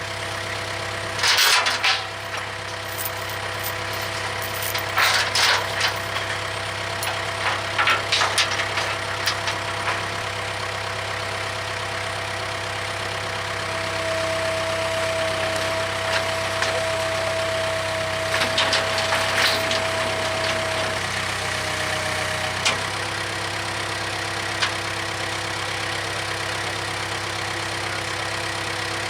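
Case 580K backhoe's diesel engine running steadily while the machine works, with scattered clanks and scrapes from the bucket and digging. A steady whining tone runs through the middle and stops about three-quarters of the way through.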